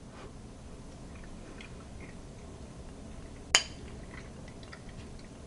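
An eating utensil clinking once against a dish: a single sharp clink with a short ring about three and a half seconds in, with a few faint small clicks around it.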